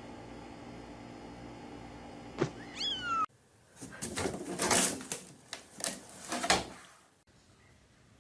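Cats calling: a short meow sliding down in pitch about three seconds in, then a few seconds of loud, harsh cat cries.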